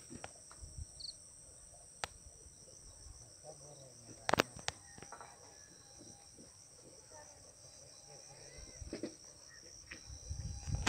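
Steady high-pitched trilling of an insect chorus, with a few sharp clicks, the loudest about four seconds in.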